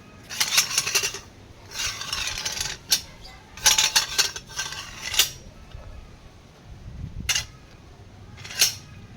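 Metal parts clinking and scraping against each other in several short rattling bursts, with a few single sharper clanks near the end.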